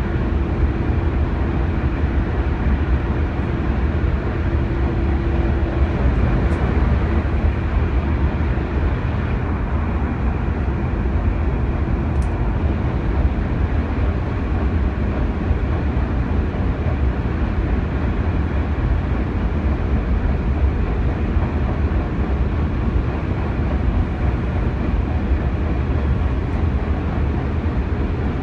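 Steady low rumble of a vehicle on the move, engine and road noise running evenly without a break.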